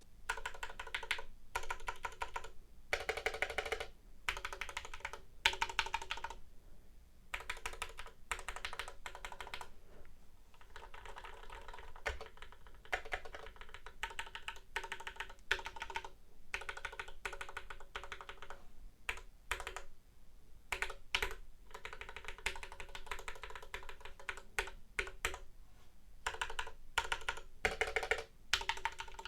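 Typing on a mechanical keyboard as a sound test: dense runs of key clacks in bursts, broken by short pauses.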